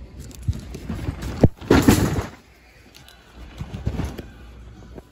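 Cardboard Hot Wheels shipping cases being handled in a shopping cart: a sharp knock about a second and a half in, then a loud half-second cardboard scrape, followed by quieter rustling and bumping.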